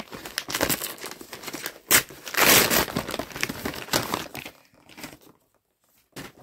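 A parcel's crinkly wrapping being handled and torn open by hand: a run of crackling rustles, with a sharp, louder burst about two seconds in. It dies away after about four and a half seconds, leaving only a couple of small clicks.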